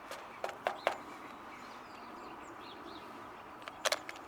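A few short sharp clicks or taps, three near the start and a quick cluster near the end, over outdoor background noise with faint, high bird chirps in between.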